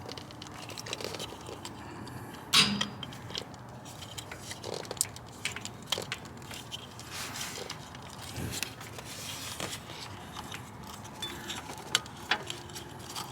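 Hands working the plastic wiring connector of the air-fuel (oxygen) sensor on a 2013 Toyota RAV4: scattered small clicks and rattles, with one sharp click about two and a half seconds in.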